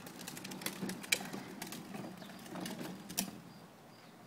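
Little Tikes Cozy Coupe ride-on car's hard plastic wheels rolling over cracked concrete, an uneven run of clicks, knocks and rattles that dies down about three seconds in.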